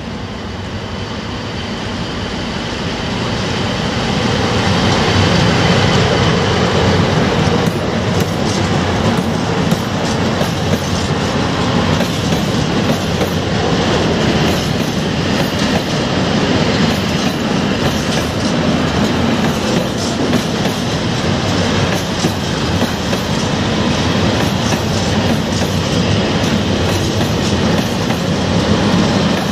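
A freight train of open coal wagons hauled by an EU07 electric locomotive runs past close by. It grows louder over the first five seconds as the locomotive arrives, then holds steady as the wagons roll by, their wheels clicking over the rail joints.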